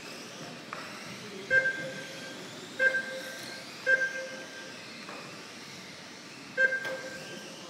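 RC race lap-timing system beeping four times at irregular intervals, each short two-pitched beep marking a car crossing the timing line, over steady background noise from the hall.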